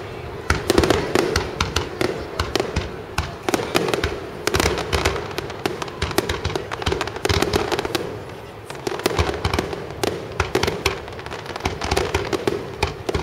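Aerial firework shells bursting in a dense barrage: booms and sharp reports following one another several times a second, mixed with crackling.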